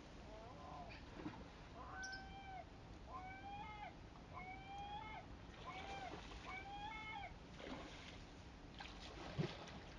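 A bird giving six short mewing calls, about one a second, each a clear pitched note that dips at its end. A single thump near the end.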